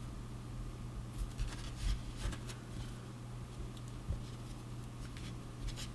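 Fingers pressing and rubbing a small lump of Play-Doh, giving faint scuffing handling noises about a second in and again near the end, over a steady low hum.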